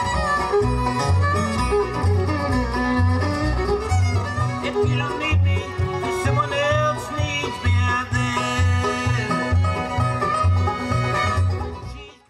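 Bluegrass band playing, with banjo, fiddle and guitar over a steady upright-bass beat. The music cuts off abruptly just before the end.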